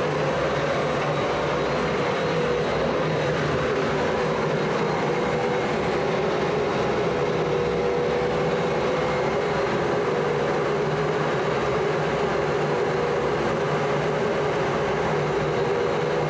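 Boiler-plant machinery running: a steady, unchanging rushing noise with a constant hum underneath.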